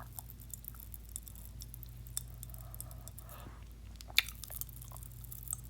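Kool-Aid cherry popping candy crackling in the mouth: faint, irregular tiny pops, with one slightly louder pop about four seconds in.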